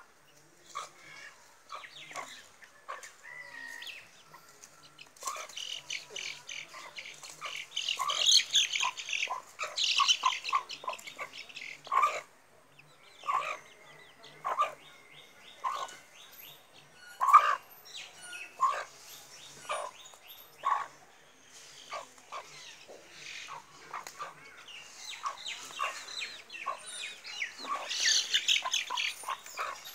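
Chickens clucking in short calls while birds chirp in quick trills, the chirping loudest about eight to ten seconds in and again near the end.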